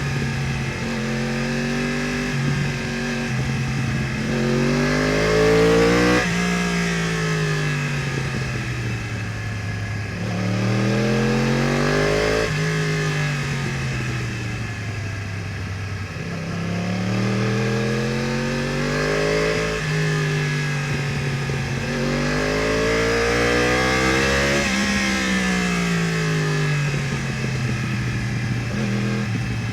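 Yamaha R1's crossplane inline-four through an Akrapovič exhaust, under load on a ride. The revs climb steadily, then drop sharply and wind down, four times over.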